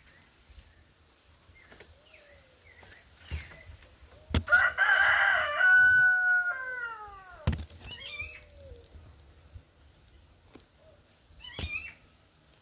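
A rooster crowing once, about four and a half seconds in: a loud held call lasting about two seconds that ends in a falling note. Small birds chirp faintly around it.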